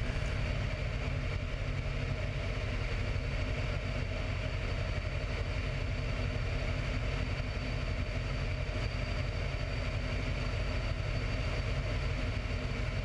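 Radial engine and propeller of a biplane in flight, a steady drone at full power, with wind rushing over the wing-mounted microphone.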